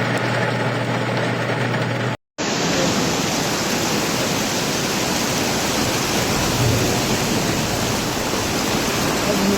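Heavy rain and running storm water, a dense steady hiss, with a low hum underneath for the first two seconds. The sound breaks off for an instant about two seconds in and resumes as the same dense water noise.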